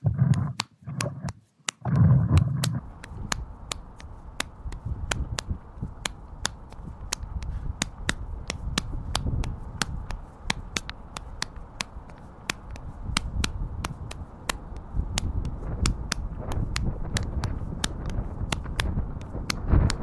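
Muffled, uneven sloshing as a rake is dragged through shallow floodwater with the camera on its handle, then, from about two seconds in, steady wind rumbling on the microphone. Sharp, evenly spaced clicks, about three a second, run through it.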